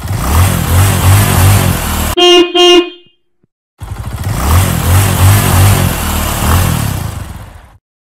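Car engine running with a low pulsing rumble. About two seconds in, a car horn gives two short honks. After a second of silence the engine sound comes back and fades out near the end.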